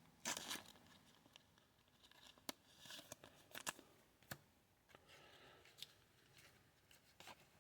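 Faint handling of a trading card being slid into a plastic sleeve: scattered light clicks and short rustles of card stock against plastic.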